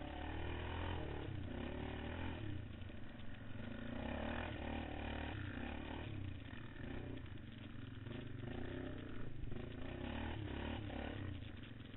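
Quad bike (ATV) engine being ridden hard over a dirt race track, the revs rising and falling again and again as the throttle is opened and closed.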